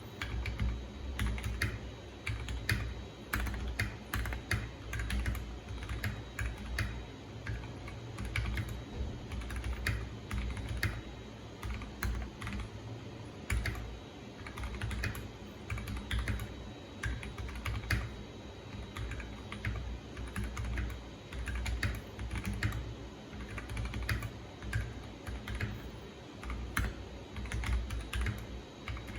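Typing on a Tofu60 60% mechanical keyboard with lubed and filmed Gateron Ink Black V1 linear switches: a fast, uneven run of keystrokes, several a second.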